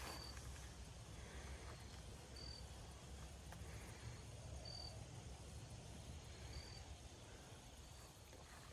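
Faint outdoor quiet with a single insect, likely a cricket, giving short high chirps about once every two seconds, over a low steady rumble.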